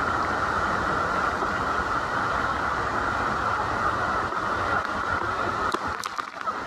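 Steady loud roar of the Iguazú waterfall and its churning spray around an open tour boat, with a few sharp knocks near the end.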